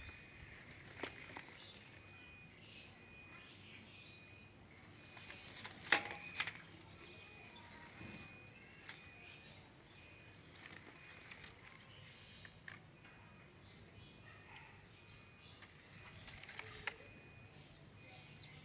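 A steady, high insect drone, with a few scattered clicks and one sharp, louder click about six seconds in.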